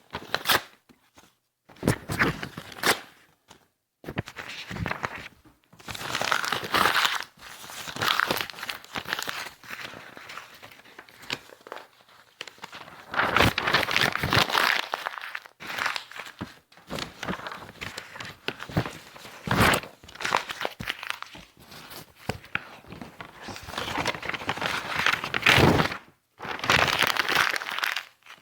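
Sheets of paper being handled and crinkled, in irregular rustling, crackling bursts with short pauses between them.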